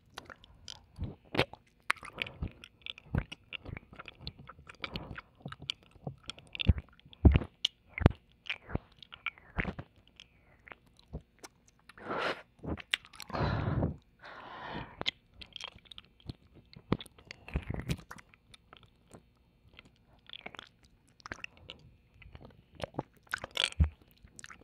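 Close, wet mouth sounds of ear licking and kissing into the right ear of a microphone: many sharp tongue and lip clicks, with a few longer slurping licks near the middle.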